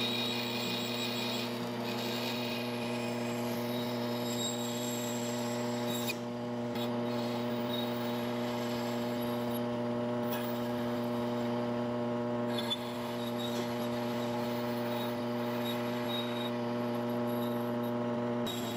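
Benchtop bandsaw running with a steady motor hum. Its blade cuts small pieces of thin wood, and the hiss of the cut comes and goes above the hum.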